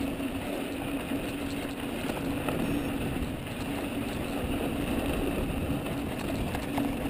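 Mountain bike rolling down a loose dirt and gravel trail: a steady rumble of tyres and wind noise on the camera microphone, with a steady low hum and scattered small clicks from the gravel.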